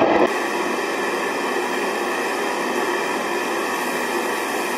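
A steady hiss with faint steady tones and no low end. It cuts in abruptly about a quarter second in, as the louder noise before it stops.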